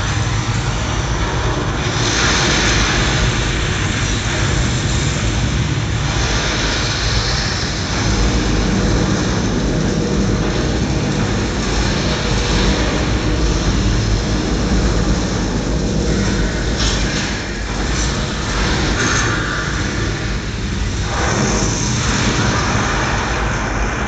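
Recorded roar of a Saturn V launch played loud through a theatre sound system: a continuous deep rumble, heaviest in the low bass, carrying on after liftoff.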